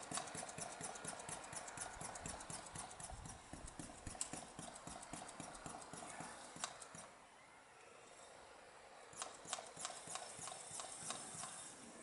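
Hand vacuum brake bleeder sucking air and brake fluid out through the opened front caliper bleed nipple and along the clear hose: a fast run of sharp clicks, about five a second. It eases off about seven seconds in, then clicks again a little later.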